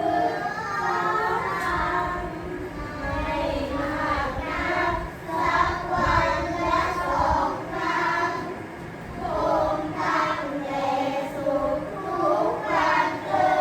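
A child chanting Thai verse in the traditional melodic reading style, holding syllables and bending them in wavering ornamental runs (ลูกเอื้อน) in a clear voice.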